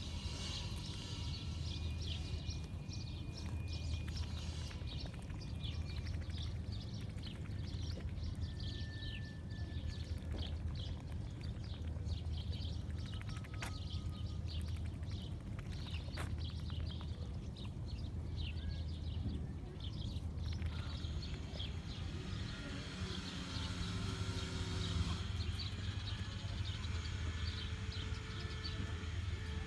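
Many chicks peeping in short, high, rapid chirps over a steady low hum.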